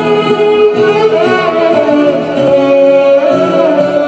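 Background music with a sung melody of long held notes over instruments.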